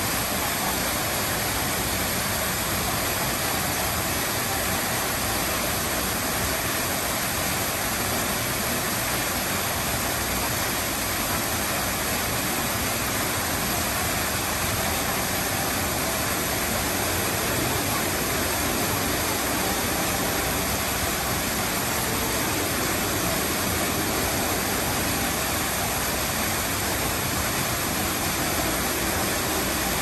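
Man-made rock waterfall pouring steadily onto the rocks below, a continuous rush of falling water.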